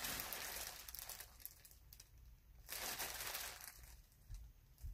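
Plastic packaging crinkling as it is handled. There are two stretches: one at the start lasting about a second, and another about three seconds in.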